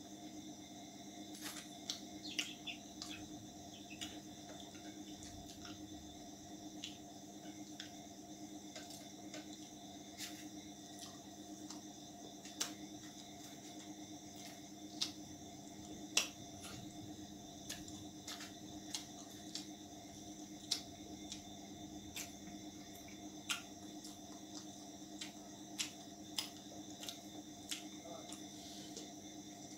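Close-up eating sounds of a man eating roti and chicken curry by hand: irregular sharp clicks and smacks of chewing, with fingers picking food from a steel plate and bowl, over a steady background hum.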